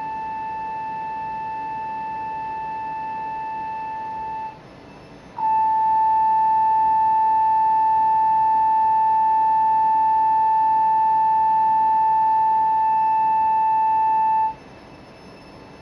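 Surface transducer (contact speaker) on a plywood board sounding a steady 880 Hz test tone, with fainter overtones above it. The tone plays for about four seconds, breaks off for about a second, then returns louder for about nine seconds and cuts off, leaving a faint hiss.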